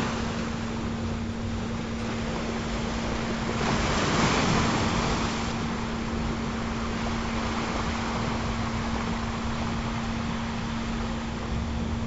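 Ocean surf washing steadily, one wave swelling louder about four seconds in, under a single steady low tone from the meditation frequency track.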